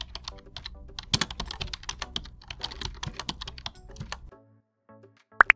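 Rapid keyboard-typing sound effect, a quick run of key clicks, stopping about four seconds in. A few soft musical notes and a short rising swoosh follow near the end.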